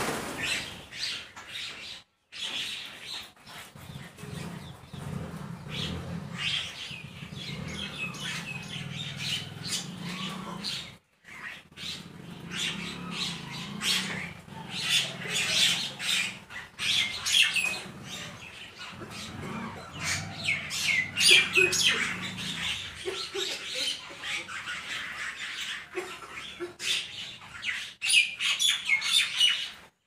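A flock of common mynas calling and chattering together, many overlapping squawks and chirps, with a flurry of wingbeats as the flock flushes at the start. A low steady hum runs underneath and stops a few seconds before the end.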